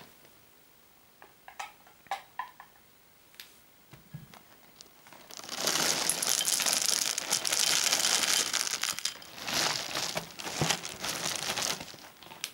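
Peanut Butter Crunch cereal balls pouring out of a crinkling plastic liner bag into a glass bowl: a dense crackling patter for about four seconds, then shorter bursts as the bag is shaken. A few light taps and rustles come first, as the box is handled.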